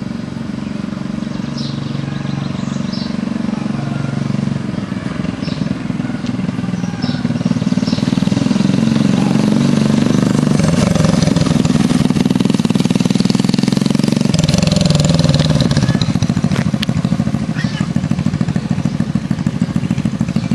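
The 50 cc single-cylinder engine of a Snap-on mini chopper motorcycle running as it is ridden, growing louder as it comes closer. Its pitch rises and falls around the middle, then it settles into a low, even running near the end.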